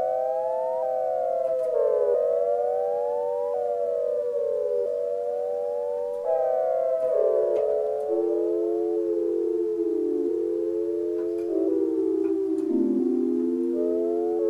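Sequential Circuits Prophet-5 Rev 2 analog synthesizer playing held notes and chords. A triangle-wave LFO sweeps oscillator 1's pitch slowly up and down, every two to three seconds, over steady tones that change with each new chord several times.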